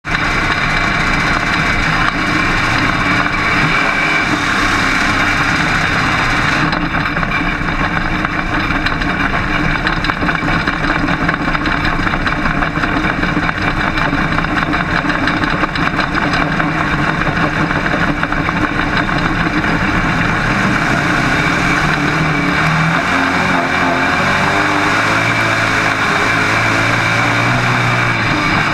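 Dirt-track modified race car's engine heard from inside the cockpit, running loud and steady at low speed; near the end its pitch climbs as it accelerates.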